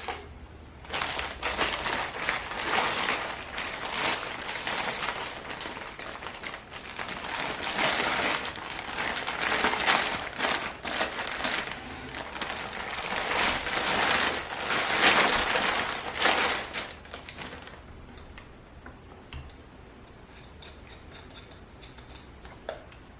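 Plastic packaging crinkling and rustling as it is handled and pulled off, busy and uneven, stopping about seventeen seconds in.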